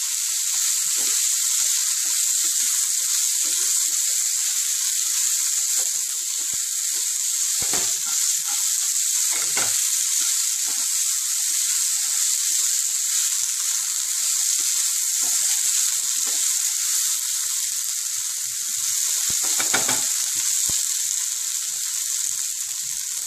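Cut okra sizzling steadily as it fries in hot oil in a non-stick pan. A wooden spatula scrapes and knocks against the pan as it is stirred, with a few louder strokes.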